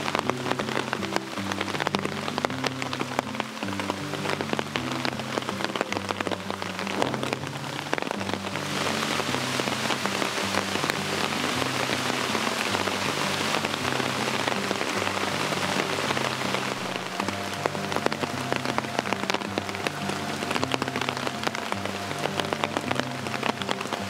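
Heavy rain pattering densely on a pond's water surface, getting louder about a third of the way through. Soft background music with slow low notes plays underneath.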